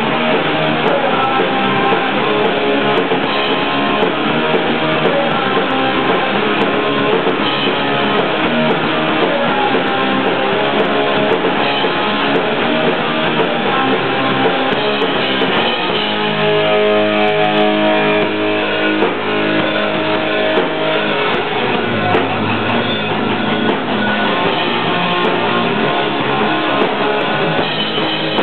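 Pop-punk band playing live: loud electric guitar chords over a drum kit. Around the middle, chords are held and ring out for several seconds before the busier playing returns.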